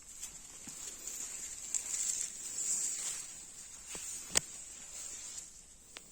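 Insects buzzing steadily at a high pitch, growing louder in the middle and fading toward the end, with a few sharp clicks, the loudest about four seconds in.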